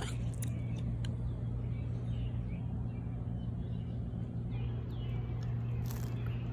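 Steady low mechanical hum, like machinery running, with a few faint bird chirps and light clicks over it.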